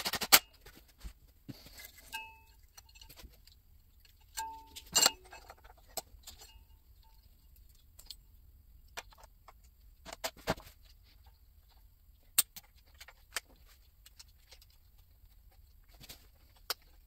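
Scattered clicks and light clinks of a wiring harness being fitted to a 4L60E transmission's aluminium valve body, its plastic connectors pressed onto the solenoids. A couple of short metallic rings come about two and four and a half seconds in.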